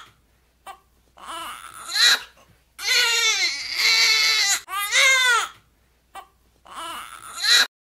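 A high-pitched voice wailing and crying: four wails with short breaks between, each sliding down in pitch, the longest in the middle.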